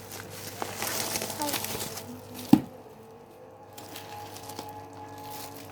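Packaging rustling and crinkling as a parcel is torn open and unwrapped, with one sharp snap about two and a half seconds in.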